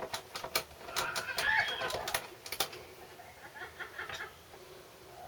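Sharp clicks and taps of hand tools on small-engine parts, with a short run of chirping calls between about one and two seconds in and fainter chirps later.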